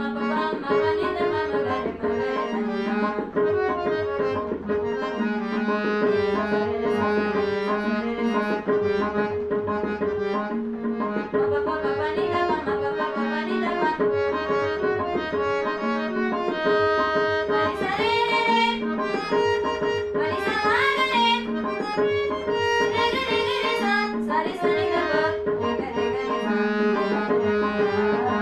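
Indian music played on a harmonium-like reed instrument over a steady drone with a repeating tabla-like rhythm; a young woman's singing voice comes in about two-thirds of the way through with gliding, ornamented phrases.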